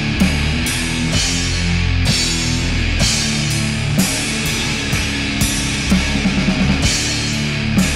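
Death doom metal recording: heavily distorted guitar and bass over drums, with cymbal crashes about once a second and a quick drum fill about three-quarters of the way in.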